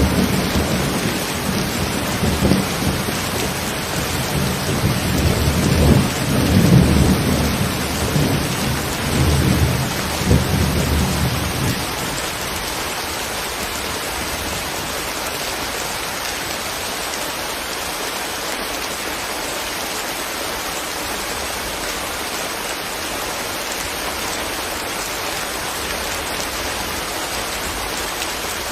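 Steady rain hiss with a low rumble of thunder underneath. The thunder swells twice and ends about twelve seconds in, leaving the rain alone.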